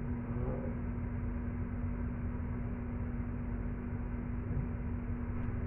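A steady hum over a constant low background noise, with no distinct knocks or other events.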